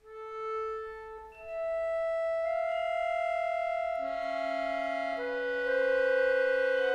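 Accordion playing held reed notes that come in one after another out of silence and overlap into a sustained chord, which gets louder about five and a half seconds in.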